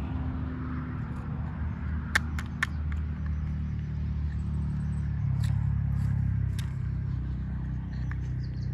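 A steady, low engine-like rumble that swells slightly in the middle, with a few light clicks from the plastic toy tractor model being handled.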